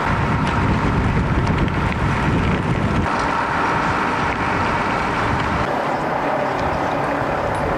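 Outdoor street noise: wind buffeting the microphone over a steady rush of traffic.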